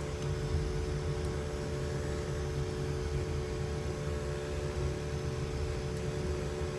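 Inside a car's cabin while driving slowly: a steady low rumble of engine and tyres, with a faint steady hum running over it.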